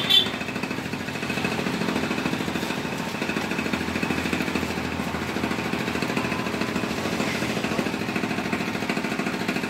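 A motor or engine running steadily with a constant drone, with a short sharp knock right at the start.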